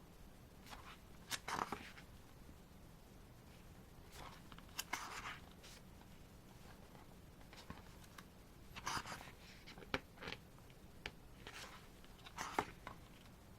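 Faint paper handling: album photobook pages being turned and touched, in short rustles and a few sharp clicks spread irregularly.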